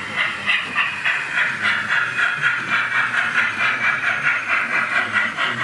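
Sound-fitted 00 gauge model steam locomotive chuffing steadily, about four chuffs a second.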